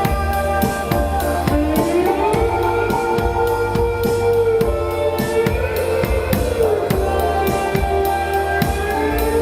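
Music with a steady drum-kit beat, bass drum and snare, under long held melodic notes that slide up and down between pitches.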